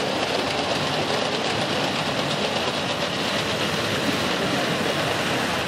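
O gauge tinplate model train running along tinplate track: a steady, dense metallic rattle of wheels on the rails.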